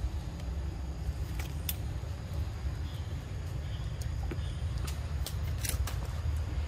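A steady low rumble, with a few sharp clicks or snaps about a second and a half in and a cluster of them near the end.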